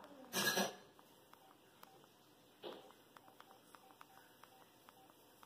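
Old flip phone sounding a faint run of short electronic beeps at one pitch, several a second. A brief loud noise about half a second in.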